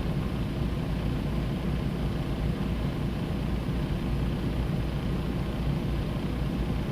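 Steady low rumble of a semi tractor's diesel engine running.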